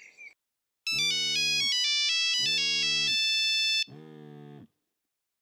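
Telephone ringing with an electronic ringtone: a short jingle of stepping notes over buzzing rings, the last ring fainter.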